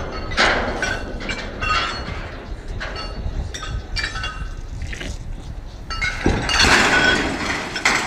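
Steel lattice transmission tower toppling: a run of metallic clinks and creaks, then a loud crash a little after six seconds in as it comes down.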